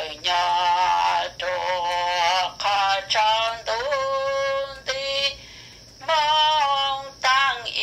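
A single high voice singing a slow, unaccompanied melody, with long held notes and wavering vibrato. Short breaks separate the phrases, with a longer pause a little past halfway.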